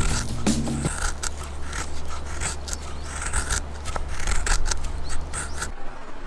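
A quick, irregular series of sharp cutting or snipping strokes over a steady low music bed; both stop abruptly near the end.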